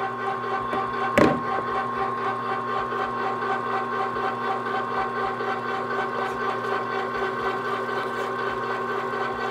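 Electric meat grinder running steadily with an even motor hum, pushing seasoned elk sausage meat through a coarse plate on its second grind. A single sharp knock sounds about a second in.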